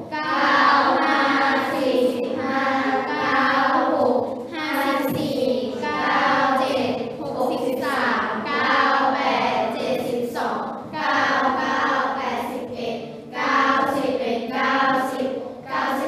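A class of children chanting the 9 times table in Thai in unison, in short, evenly paced phrases.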